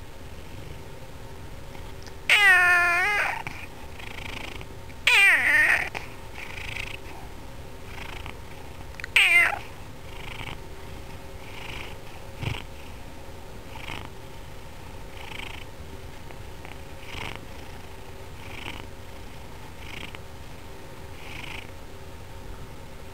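Domestic tabby cat meowing three times, loud drawn-out calls about two, five and nine seconds in, with steady purring in between: begging for food.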